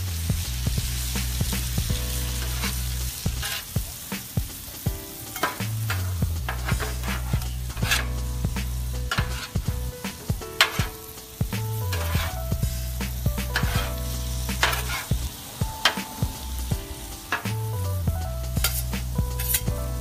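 Metal spatulas scraping and clacking against the steel top of a Blackstone griddle as rice-stick noodles, pork and vegetables are tossed, with steady sizzling as the noodles soften in chicken broth. Background music with a repeating bass line plays under it.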